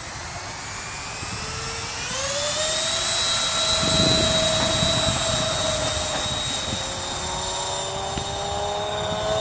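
Four 70 mm electric ducted fans on a large foamboard RC 747 spooling up for the takeoff run: a whine that rises in pitch over the first couple of seconds, then holds steady at full power. It is loudest about four seconds in, as the plane rolls past.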